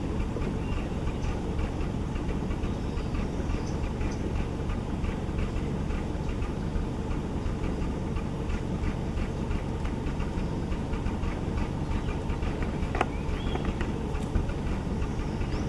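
Safari jeep engine idling as a steady low rumble, with faint rapid ticking and a few faint high chirps over it, and one sharp click near the end.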